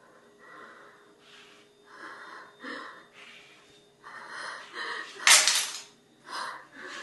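A woman breathing heavily in short, ragged breaths, with one sharp, loud gasp a little past halfway.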